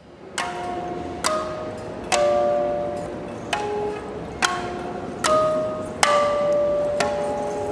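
Struck metal ringing like bells or chimes: about eight strikes, roughly one a second, each at a different pitch and ringing on until the next.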